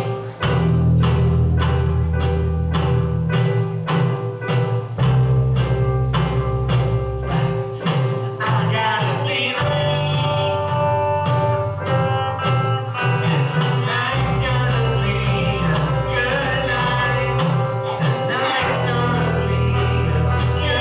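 Small live band playing a song: bass guitar holding repeated low notes, electric guitar, keyboard and drum kit keeping a steady beat. Amplified singing into microphones comes in about eight seconds in and carries on over the band.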